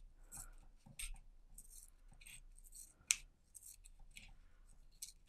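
Scissors snipping through the thin aluminium of a used Nespresso coffee capsule: a run of faint clicks and crinkles as the foil-thin metal is cut, with one sharper snip about three seconds in.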